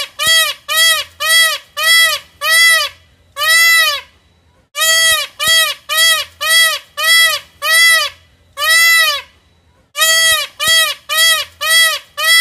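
Indian peacock calling: loud, nasal calls, each rising and then falling in pitch. They come about two a second in runs of six or seven, each run ending on a longer call, with a short pause between runs.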